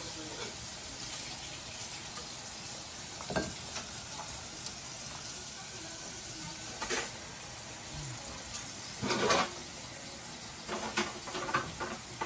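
Battered shrimp deep-frying in a pan of hot oil, a steady sizzle. A few short clinks and scrapes of a wire skimmer and chopsticks against the pan, one a little longer about nine seconds in and several close together near the end.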